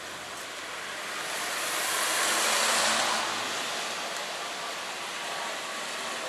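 A car passing on the wet road, its tyres hissing on the wet asphalt: the hiss swells to a peak about two and a half seconds in and then fades, over steady wet-street traffic noise.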